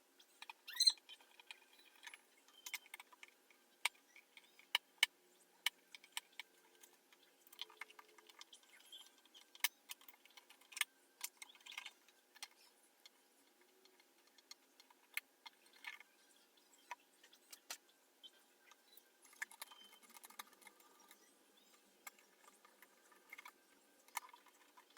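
Scattered sharp clicks and light rattles of small plastic and metal parts being handled while an Xbox Series S console is taken apart.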